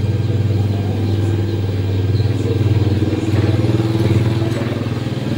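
A small engine running steadily at a constant low hum.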